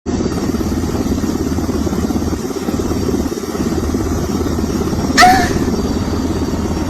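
Loud, steady engine-like rumble, with a brief high-pitched squeal about five seconds in.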